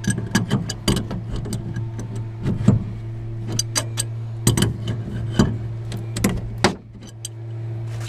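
Irregular metal clicks, clinks and knocks of hand tools working on the water heater's hose fittings, over a steady low hum.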